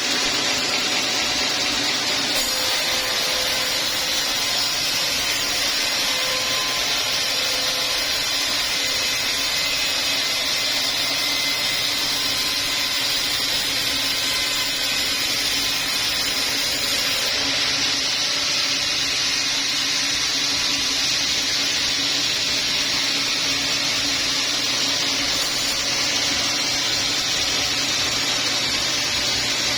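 Sawmill machinery running steadily while processing teak logs, a loud even mechanical noise with no breaks.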